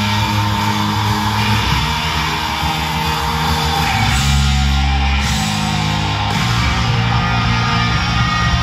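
Rock music with guitar from the fireworks show's soundtrack, playing loudly and steadily.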